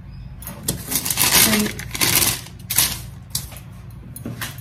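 Several bursts of rustling and handling noise over about three seconds, in the middle of the stretch, as things on the table are moved about by hand.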